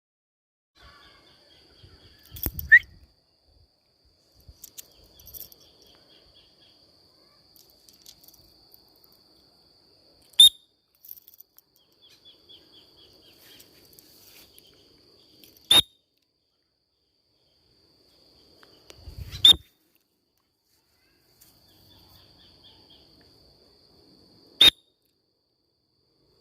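A steady high insect trill that stops and restarts several times, with short runs of quick bird chirps. Five sharp, loud clicks stand out, spaced a few seconds apart.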